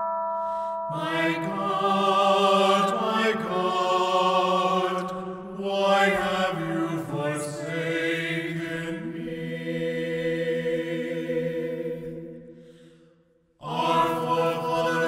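Slow, chant-like singing, voices holding long notes with vibrato. It fades away about twelve seconds in, and after a short gap the singing comes back in near the end.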